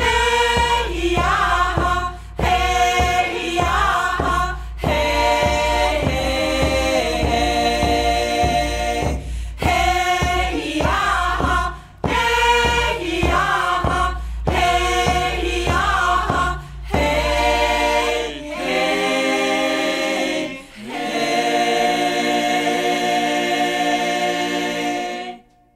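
Choral vocal music: voices singing short rising phrases over a steady low drone, then moving into long held chords that stop abruptly near the end.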